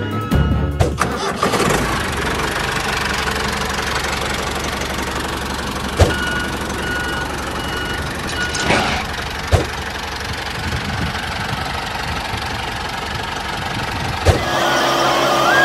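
A small motor-driven machine running steadily with a low hum, with a few sharp knocks about six, nine and a half and fourteen seconds in. Near the end the running sound changes to a steadier, higher-pitched whine.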